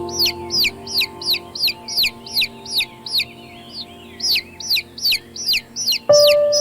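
Baby chicks peeping: a quick run of high, falling peeps, about three to four a second, with a short lull a little past the middle. Soft sustained music plays underneath and swells near the end.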